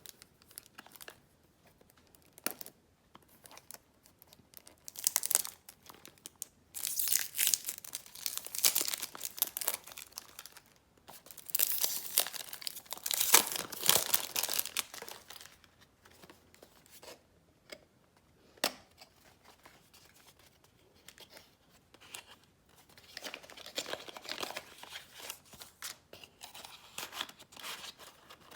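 Paper and plastic packaging being unwrapped by hand: irregular bursts of rustling, crinkling and tearing with small clicks, in several spells separated by quieter pauses.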